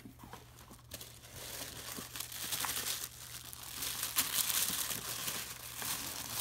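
Hands rustling and crinkling white tissue paper while unwrapping an item packed in a cardboard gift box. The rustling grows louder after the first second or two.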